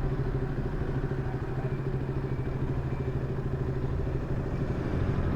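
KTM Duke 200's single-cylinder engine running steadily at idle with a ticking knock, which the owner puts down to the cam chain.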